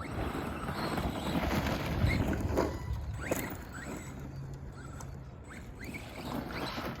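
ARRMA Granite 3S BLX brushless RC monster truck driving over rough ground: short rising whines from the brushless motor as the throttle is feathered, over a rattling, noisy running sound.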